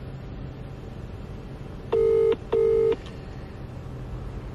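British telephone ringback tone, heard while a call rings out waiting to be answered: one double ring about two seconds in, two short steady tones with a brief gap between them.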